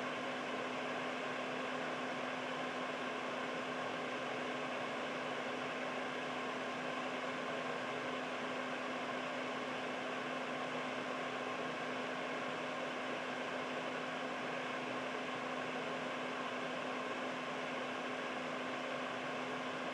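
Air purifier fan running steadily: an even rush of air with a constant low hum underneath.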